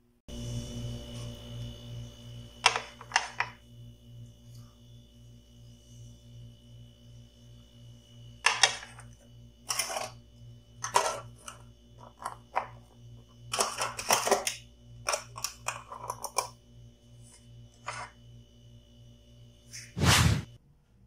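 Dishes and utensils clattering as a plate and bowls are handled on a plastic serving tray: a string of sharp, irregular clicks and knocks, with a heavier knock near the end. A steady, pulsing hum runs underneath.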